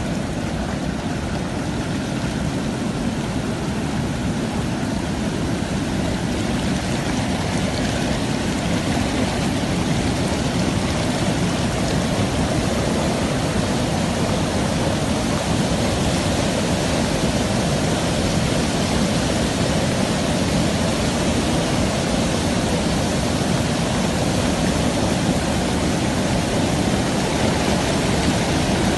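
Muddy floodwater from a breached dam rushing past in a fast, churning torrent: a steady, loud rushing noise that grows slightly louder.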